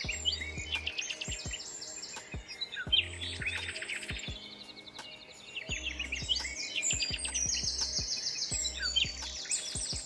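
Songbirds chirping in fast, repeated trills of high notes, in phrases that come and go, over background music with a low bass line.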